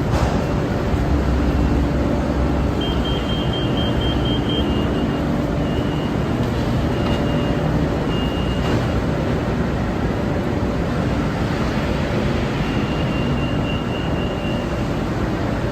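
Inside a BTS Skytrain EMU-B1 carriage while the train runs: a steady rumble of the wheels and running gear, with a faint high whine that comes and goes.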